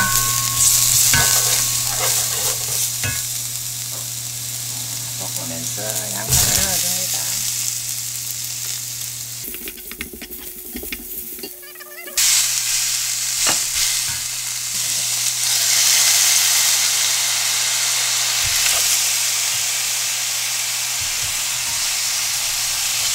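Food sizzling in oil in a stainless steel frying pan while a wooden spoon stirs it, with occasional knocks of the spoon on the pan. Minced garlic fries first, then sliced onion and carrot, then sliced beef near the end. The sizzle drops off for a couple of seconds near the middle, then comes back louder.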